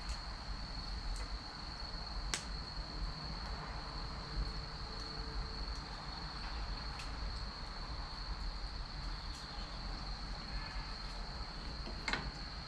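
Wood fire crackling, with a few sharp pops from the burning logs, the loudest about two seconds in and near the end. A steady high insect trill sounds throughout.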